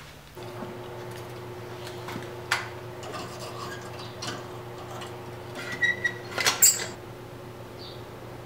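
Light metal-on-metal clinks over a steady hum, then a quick clatter of ringing clinks about six seconds in, as a red-hot steel knife blank is hung on a steel hook rack to air-cool between normalizing and thermal cycles.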